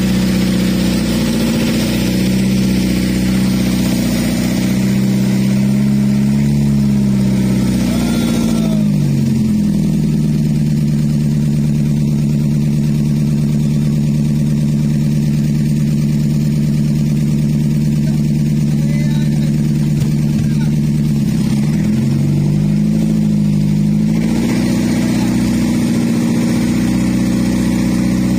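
Fishing boat's engine running steadily. Its pitch drops about a third of the way in and climbs back up near the end.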